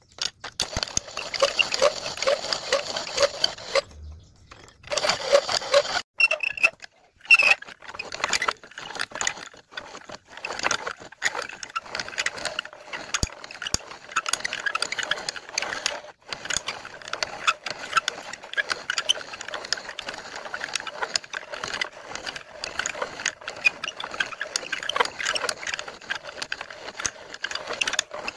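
Improvised home-made lathe turning a steel sleeve against a tool bit: a fast, uneven metallic rattling clatter as the part spins and is cut, dipping briefly about four seconds in.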